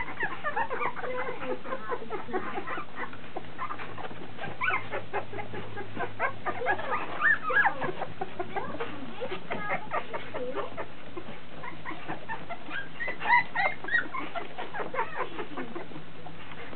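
A litter of 16-day-old puppies squeaking and whimpering, many short high chirps overlapping, with a few louder squeals about halfway through and again later on.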